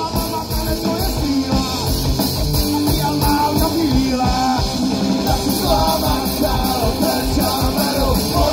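A live rock band playing: electric guitars and a drum kit with a man singing into a microphone.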